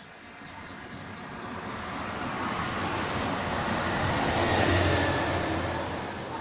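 A road vehicle passing by: engine and tyre noise that swells steadily to a peak about four to five seconds in, then fades away.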